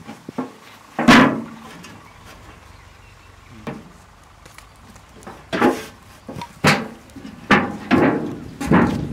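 Hollow knocks and clatters of empty metal oil tins being lifted and set down on hard ground. One loud knock comes about a second in, then a quicker run of five knocks in the second half.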